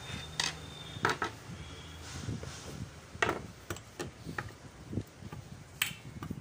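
Screwdriver working the heat-sink screws out of an inverter AC outdoor-unit circuit board: scattered sharp metal clicks and taps a second or two apart, over low handling noise of the board being held and turned.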